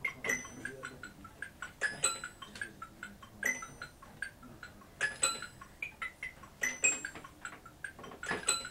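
Live improvised music: clusters of sharp metallic strikes with short bell-like ringing, recurring about every one and a half seconds.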